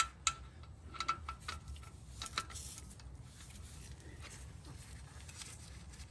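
Light metallic clinks of a wrench and the oil drain plug, several in the first two and a half seconds with a faint ring, then a quieter stretch with only low background noise.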